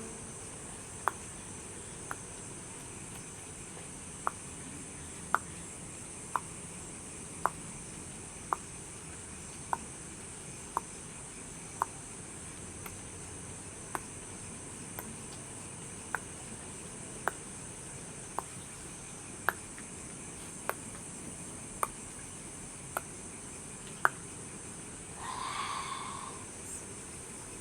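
Night ambience of crickets trilling steadily and high, with a sharp tick about once a second. A brief pitched sound comes through near the end.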